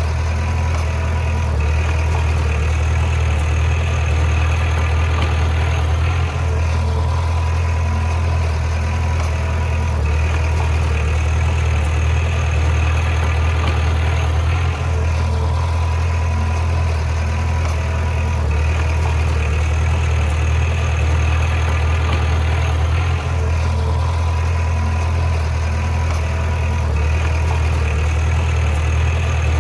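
Heavy diesel engine of earthmoving machinery running steadily with a deep low hum, with brief small dips about every eight seconds.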